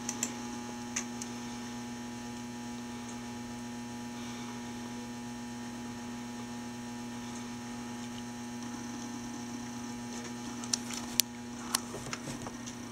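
Steady electrical mains hum, unchanging throughout, with a few faint clicks and taps near the end.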